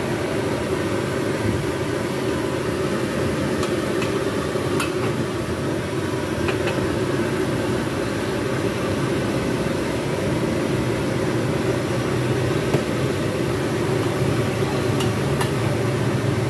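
Steady roar of a high-pressure gas wok burner, with a metal spatula clacking against the wok a few times as noodles are stir-fried.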